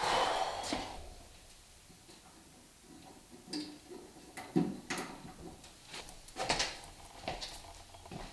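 Footsteps and scattered light clicks and knocks of a person moving about a small room, with a brief rushing noise in the first second.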